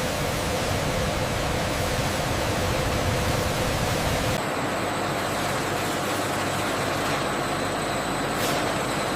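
Steady rushing noise of factory processing machinery. About four seconds in it changes abruptly to a thinner sound with less low rumble and faint steady high whines.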